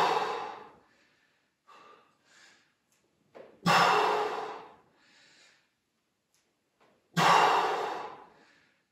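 A person breathing hard under exertion: three forceful exhales about three and a half seconds apart, each sharp at the start and trailing off, with fainter inhales between. Each breath goes with one repetition of a dumbbell Bulgarian split squat.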